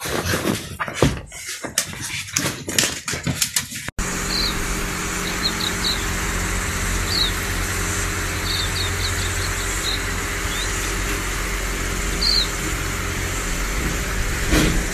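Puppies scuffling about with scattered knocks and clicks for the first few seconds. It then cuts abruptly to a steady low rumble and hiss, with a few short high chirps dotted through it.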